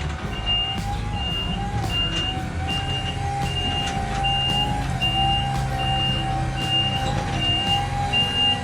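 Scissor lift's motion alarm beeping steadily, about four beeps every three seconds, over a steady whine from the lift as it is driven.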